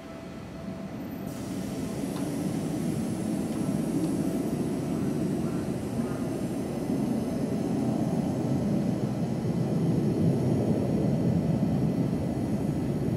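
Seibu 40000-series electric commuter train running along the track, its rumble building steadily louder as it approaches.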